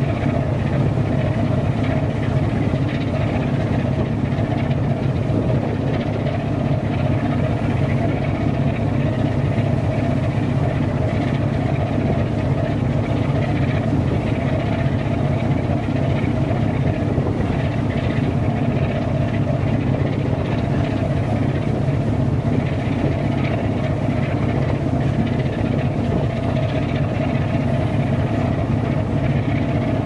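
Marine diesel engine running steadily, a constant low drone with no change in pace.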